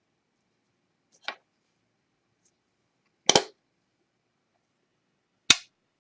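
Three sharp clicks, the middle one a quick double and the loudest: small high-strength magnets clicking as they are handled and set into the epoxied holes of wooden knobs.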